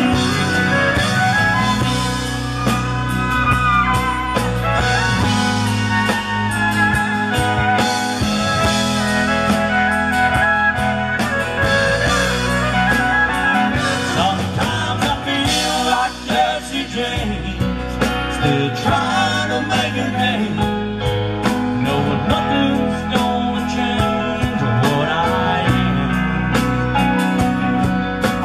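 Live country band playing: a fiddle leads over strummed acoustic guitar, electric guitars and a drum kit keeping a steady beat.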